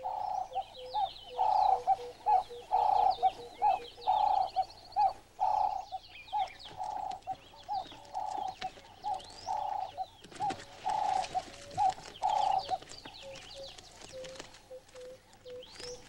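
Ring-necked dove (Cape turtle dove) cooing a rhythmic phrase over and over, with smaller birds chirping faintly above it. The cooing drops away about thirteen seconds in.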